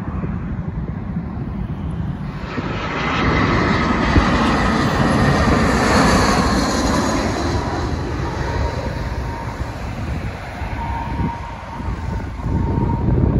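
British Airways Airbus A319 jet airliner passing low overhead on final approach. Its engine noise swells about two seconds in, with whining tones that fall in pitch as it goes over, then settles into a steady whine that fades near the end.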